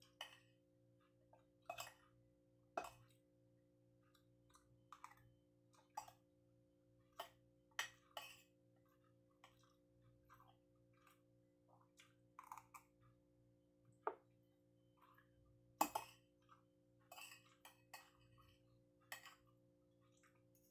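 Metal spoon and fork clinking and scraping against a ceramic plate while eating, in irregular light taps with a few sharper clinks about two, three and sixteen seconds in, over a faint steady hum.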